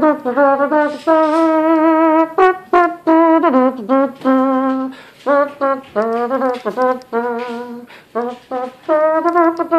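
A man vocalizing a wordless, horn-like melody with his mouth: phrases of short stepped notes and a few held tones, the pitch moving up and down, with brief pauses between phrases.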